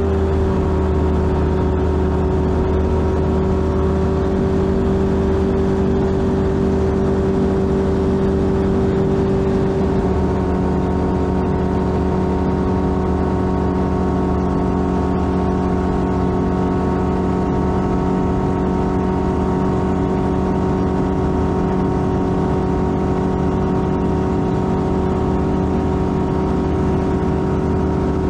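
Light aircraft's piston engine and propeller running steadily, with a slight change in its note about ten seconds in.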